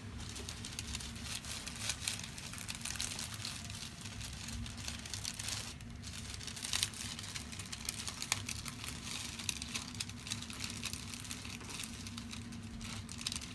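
Continuous crinkling and rustling from hands-on chiropractic work on a patient on the treatment table, with a few sharper ticks in the middle and a steady low hum beneath.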